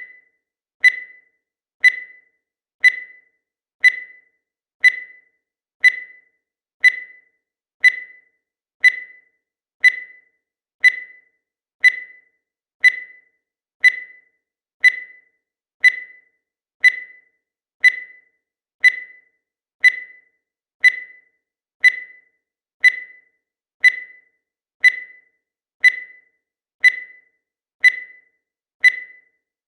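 Digital timer beeping once every second, each a short high-pitched beep that fades quickly, marking off the seconds of a countdown.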